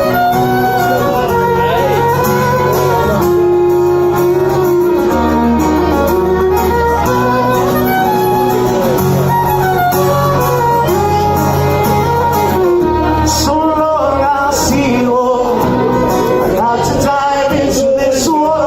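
Live band music: an instrumental break in a song, with strummed guitar and a lead melody that slides between notes over a steady bass.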